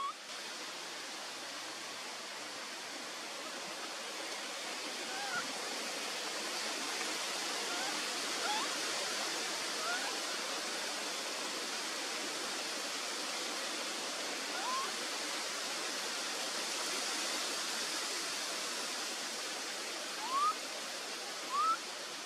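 Short, rising squeaks of baby macaques every few seconds over a steady hiss of outdoor ambience. The two loudest squeaks come near the end.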